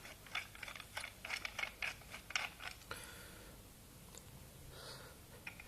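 Quick run of small clicks and rattles from pressure-washer lance adapter fittings being handled and screwed, thinning out to a few isolated clicks about halfway through.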